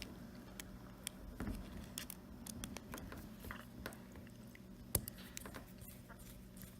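Faint, scattered clicks and taps of a small screw and wire terminals being handled and pushed into place on a hair clipper's switch post, with one sharper click about five seconds in.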